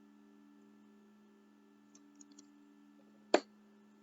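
Faint steady hum with a few soft ticks about two seconds in and one sharp click near the end.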